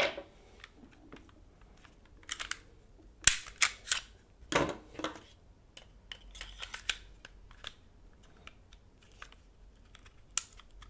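Sharp metallic clicks and clacks of a Walther pistol slide being handled and worked onto a frame's rails, with a quick run of clicks about three seconds in and a single click near the end. The slide is one that is no longer cross-compatible with this frame and sticks on it.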